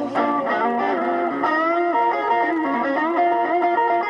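Electric guitar playing a blues lead line, single notes with some bent up and down in pitch.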